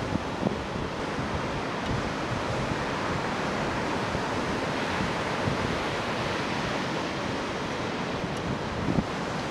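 Ocean surf breaking and washing in, a steady rushing noise, with wind buffeting the microphone in a few brief low thumps near the start and about nine seconds in.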